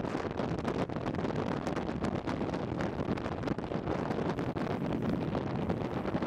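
Wind buffeting the microphone at high speed, over the rolling rumble of longboard wheels on asphalt during a fast downhill run.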